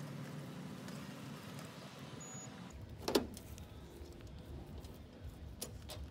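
Low, quiet hum of an electric mobility scooter driving over dirt, then a single knock a little after three seconds in and a few light clicks near the end.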